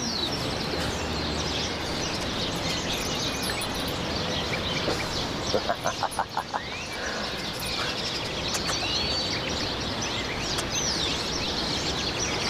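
Outdoor ambience with many small birds chirping over a steady background hiss. About six seconds in there is a short run of about six quick, louder pulses.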